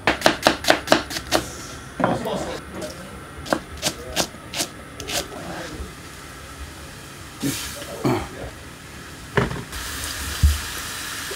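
Knife chopping on a cutting board, a quick even run of about eight strokes at the start, followed by scattered knocks and clatter of kitchen utensils and pots. A steady hiss comes in near the end.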